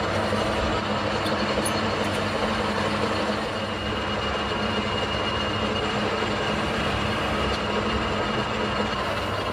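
Manual metal lathe running steadily with a boring tool cutting inside the bore of a steel gate-valve body: a low machine hum under the noise of the cut, with a thin high whine from the tool through the middle.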